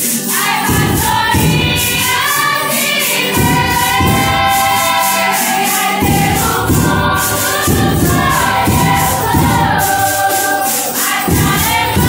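Folia de Reis ensemble singing a hymn in chorus, several voices together, over accordion and guitar accompaniment with a steady tambourine beat.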